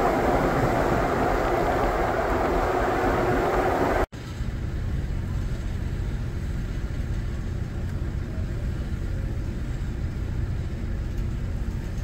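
Tyre and road noise of a car driving on a snow-covered interstate, heard from inside the car. About four seconds in it cuts off abruptly, and a quieter, steady low rumble takes over.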